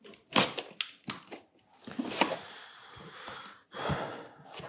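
Large corrugated cardboard box being opened by hand: a few knocks, then a longer scraping, tearing rasp of cardboard as the top flaps are pulled up and apart, with another rasp near the end.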